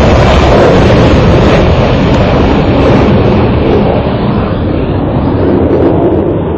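Jet fighters' engines roaring past, the loud rumble slowly fading and dulling as the aircraft fly away.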